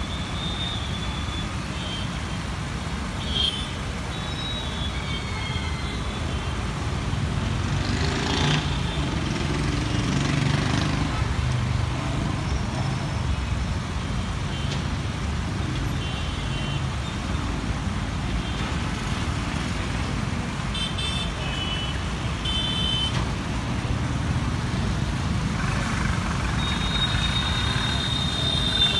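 Steady city road traffic: motorcycles, auto-rickshaws, cars and a bus running through a roundabout, with engine rumble that swells for a few seconds about a third of the way in. Vehicle horns toot briefly at the start, give several short beeps about two-thirds of the way through, and one sounds longer near the end.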